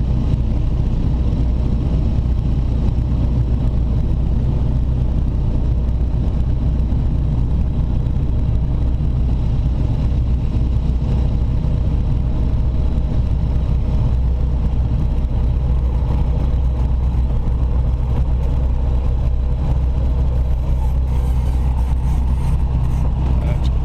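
Sling light aircraft's piston engine and propeller running steadily, a constant low drone with no change in pitch.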